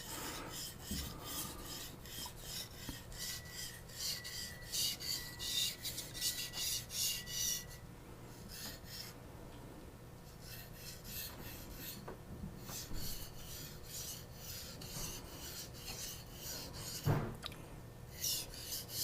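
Knife edge stroked back and forth on a fine Japanese natural finishing whetstone (about 7–8k grit), a soft rasping hiss on each stroke, about two to three strokes a second, with two brief pauses. The stone is cutting the steel.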